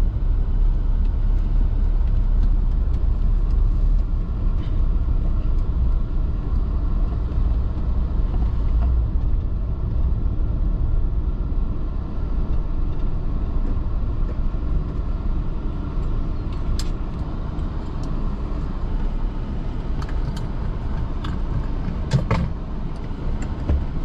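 A car driving along a paved road, heard from inside the cabin: a steady low rumble of engine and road noise, with a few faint clicks in the second half.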